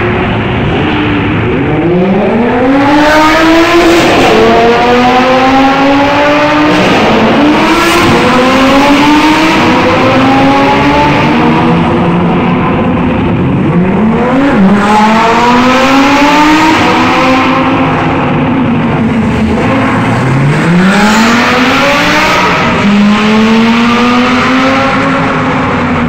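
Several supercar engines accelerating hard past one after another, each revving up in a rising whine, dropping at a gear change and climbing again, with the sweeps overlapping. Loud throughout.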